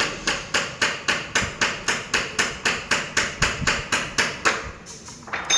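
A rapid, even run of knocks, about four a second, like hammering, stopping shortly before the end; one louder clatter follows near the end.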